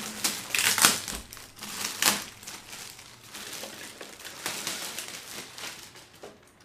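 Clear plastic wrapping crinkling and rustling as it is pulled off a robot vacuum cleaner, in irregular crackles, loudest about one and two seconds in, fading near the end.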